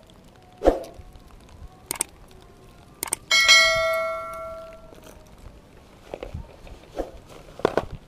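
A few sharp clicks, then about three seconds in a bright bell-like ding that rings with many overtones and fades over about a second and a half: the subscribe-button notification sound effect. Scattered small knocks and rustles of handling follow.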